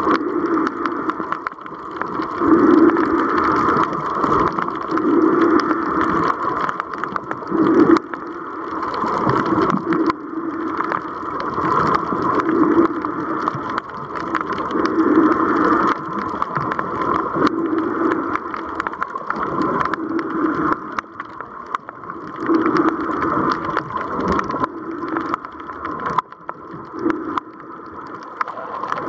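Muffled underwater sound picked up by a submerged camera: a continuous rushing drone that swells and fades every second or two.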